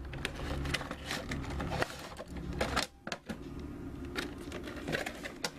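Cardboard box and clear plastic clamshell packaging handled and pulled apart: scattered clicks, scrapes and crinkles of plastic and cardboard, over a low steady hum.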